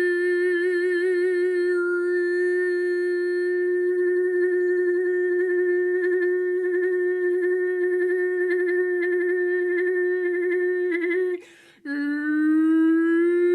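A single voice toning: one long sung note held without words, wavering in pitch at first, then steady, breaking off about eleven seconds in before a new note starts lower and slides upward.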